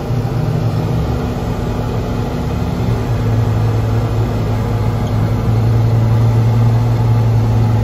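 The Massey Ferguson 4900's Cummins 903 V8 diesel, heard from inside the cab, running steadily under load as the tractor pulls a grain drill across the field. It is a low, even drone that grows a little louder in the second half.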